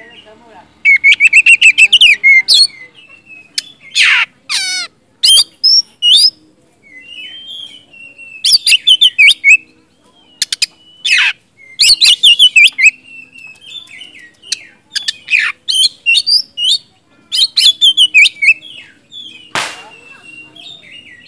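Oriental magpie-robin singing a loud, varied song in short phrases of clear whistles, rapid trills and sweeping notes, with brief pauses between phrases.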